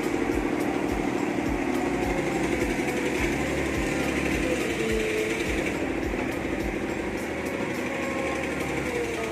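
Hitachi UH07 excavator's diesel engine running steadily under load while its hydraulics work, with a faint whine that wavers about halfway through. The machine is labouring, which the mechanic puts down to either the engine or the hydraulic pump.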